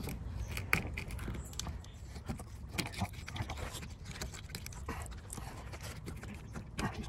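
A knife cutting into a whole sea bass behind the gills, crunching through scales and bone with irregular clicks.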